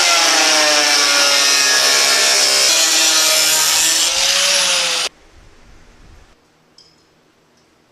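Loud power tool grinding, its pitch sagging slowly under load, for about five seconds before it stops suddenly.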